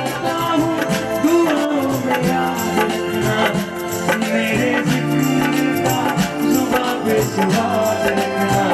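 Background music: a Hindi film love song in a passage without transcribed lyrics, melody over a steady percussion beat.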